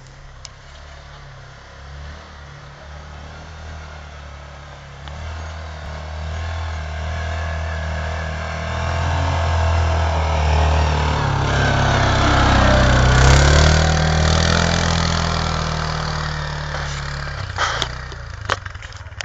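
Quad bike (ATV) engine working under throttle as it climbs a snow-covered trail. It grows louder as it comes close, peaking about two-thirds of the way through with its pitch bending, then fades away. A few sharp clicks come near the end.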